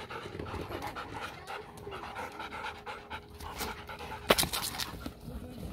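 A dog panting quickly and evenly close by, with one sharp click about three-quarters of the way through.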